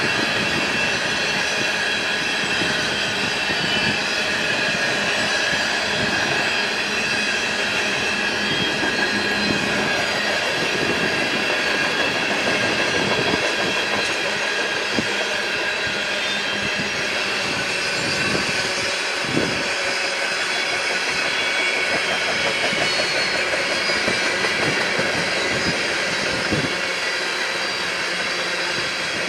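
Freight train cars rolling past, the wheels clacking over rail joints, with steady high-pitched wheel squeal.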